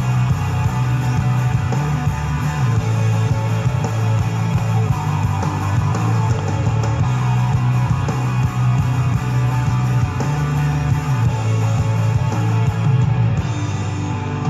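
Rock music with guitar and a steady bass line.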